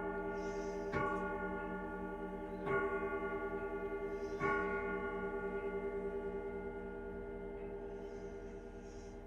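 Grandfather clock striking the hour: the last three slow strokes of ten o'clock, each a bell-like tone that rings on and fades, the final one dying away slowly.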